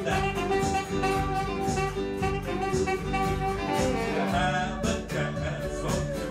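Small acoustic band playing a jazzy, bluesy tune: strummed acoustic guitars and a bass under a saxophone holding long notes, with a steady beat tapped out as percussion.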